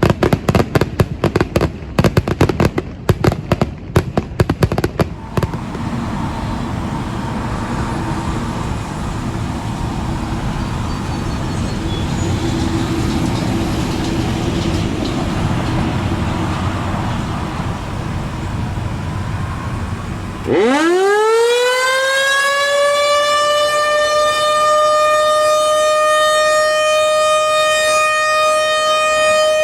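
Dense crackling and thumping for about the first five seconds, then a steady background rumble. About twenty seconds in, an A.C.A. Penetrator PN-20 outdoor warning siren with a 7.5 HP motor winds up, its pitch climbing over about two seconds and then holding as a loud, steady wail rich in overtones: the start of its 1.5-minute alert test signal.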